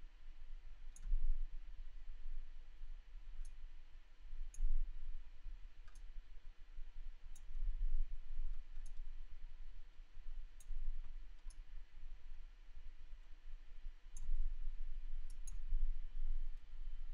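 Computer mouse clicking now and then, about a dozen short, sharp clicks at irregular intervals, over a faint low rumble.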